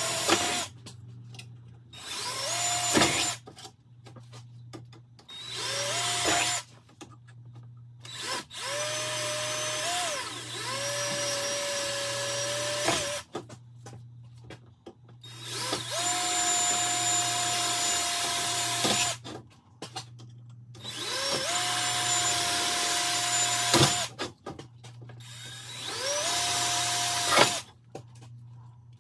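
Cordless drill with an 11/64 bit drilling holes in a truck grille's mounting brackets. It makes about eight short runs, each spinning up to a steady whine and then stopping, with a sharp click at the end of a few.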